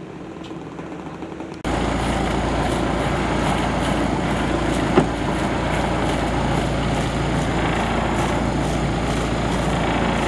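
Small fishing boat's engine idling steadily close by, with one sharp knock about five seconds in.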